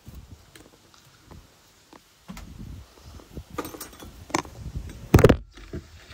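Handling noise from a handheld camera being moved about: scattered knocks and rubbing on the microphone, with the loudest knock about five seconds in.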